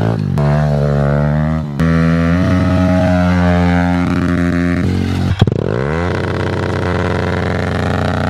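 Kawasaki KLX110 pit bike's small single-cylinder four-stroke engine running under throttle as it is ridden, its pitch rising and falling with the revs. About five seconds in there is a sharp click, then the revs drop away and it settles to a steady idle.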